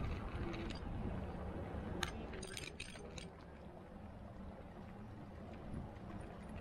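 Fat-bike tyres rolling on a wet tarmac path: a low rumble with a wet hiss. A short cluster of sharp clicks comes about two to three seconds in.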